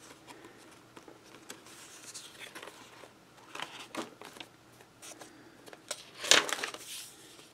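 Paper and cardstock pages of a ring-bound handmade journal rustling and crinkling as they are turned by hand, with scattered light rustles and the loudest rustle about six seconds in.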